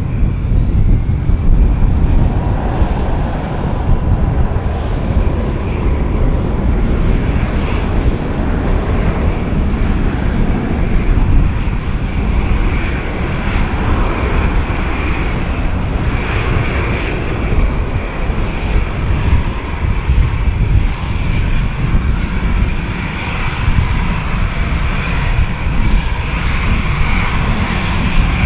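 Airbus A321-211 jet airliner's twin CFM56-5B turbofan engines at takeoff thrust during the takeoff roll, a loud steady rumble with a higher whine on top.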